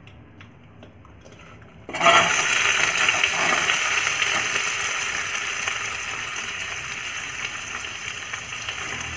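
Diced onion hitting a few spoonfuls of hot oil in a pan: a loud sizzle starts suddenly about two seconds in and slowly dies down as the onion fries.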